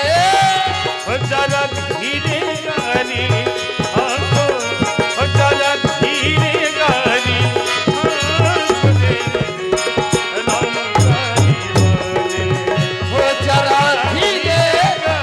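Devotional kirtan music: hand drums keep a steady beat under a melodic instrument line, with a singing voice near the start and again near the end.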